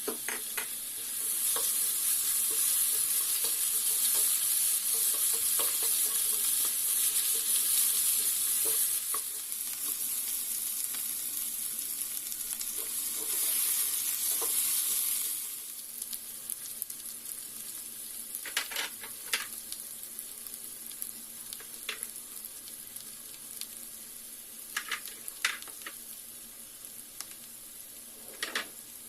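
Food frying and sizzling in hot oil in a pan while it is stirred. The sizzle is loud through the first half, swells again briefly, then drops to a quieter sizzle with a handful of sharp clicks of the spoon or spatula against the pan.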